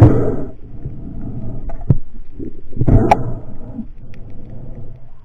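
Muffled underwater noise of water rushing past the camera as a spearfisher moves, with two sharp clicks about two and three seconds in.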